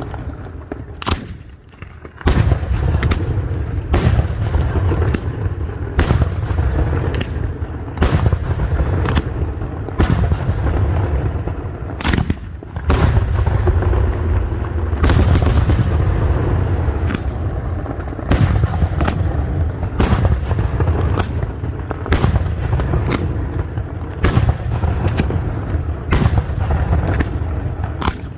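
Aerial firework shells bursting in a castillo display: a rapid run of sharp bangs, a little more than one a second, over a continuous low rumble. There is a brief lull about a second in.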